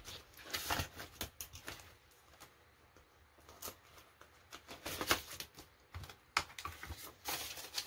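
Paper banknotes being handled and slid into a clear plastic binder pouch: a string of short, irregular rustles and crinkles with a few soft taps.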